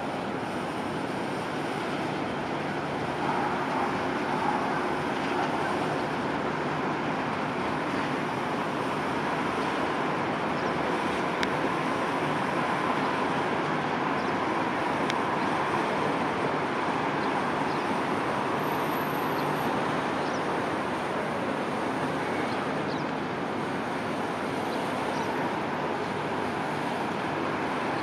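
Steady distant rumble of a Cessna Citation Latitude business jet's twin turbofan engines as it lands and rolls out, mixed with road traffic noise.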